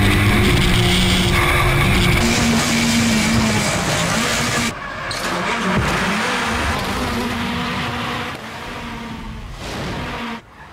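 Turbocharged four-cylinder Ford Fiesta rally car held at high revs while drifting, with tyres squealing and skidding. The sound changes abruptly about halfway through and again near the end.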